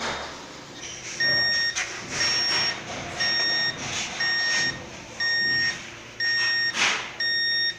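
Fire alarm control panel beeping: a high beep about half a second long, repeated once a second, starting about a second in. It signals the smoke detector under test going into alarm. Faint rustling and handling noise sounds between the beeps.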